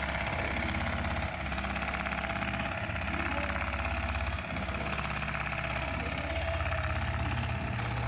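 CNC automatic pattern sewing machine stitching car seat material at speed: a steady, fast, rhythmic mechanical run that shifts slightly in tone about a second in and again midway as the machine works through its pattern.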